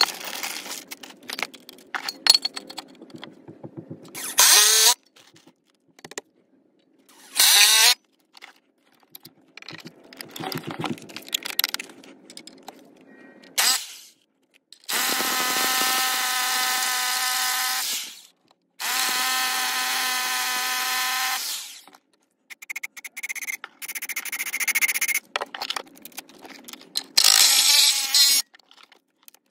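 Cordless impact driver driving screws through a steel anchor plate into the wooden mudsill in two short runs. Then a rotary hammer drills into the concrete foundation in two steady runs of about three seconds each. Then the impact driver runs again in a string of short bursts, with a longer run near the end.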